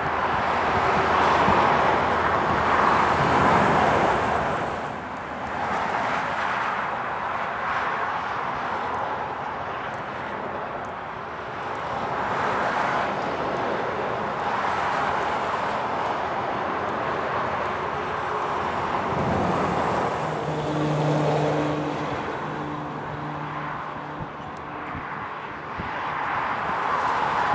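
Motorway traffic: heavy lorries and cars passing one after another, their tyre noise swelling and fading every few seconds. In the second half a vehicle engine's steady low hum sounds under the traffic for several seconds.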